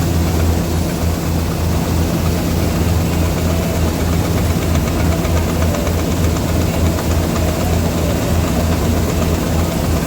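Tractor diesel engine running steadily with a deep, slightly pulsing drone, driving harvesting machinery.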